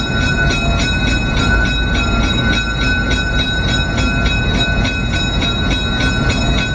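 GE 44-ton diesel-electric locomotive running and rolling slowly, heard from inside its cab: a steady engine rumble with a steady high whine over it.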